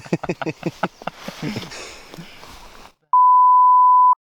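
A censor bleep: a loud, steady, pure 1 kHz tone starting about three seconds in, after a few words of men talking and a stretch of hiss, covering a swear word.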